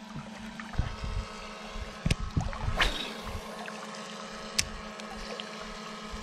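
Steady low hum of a boat motor running, with a few sharp knocks scattered through.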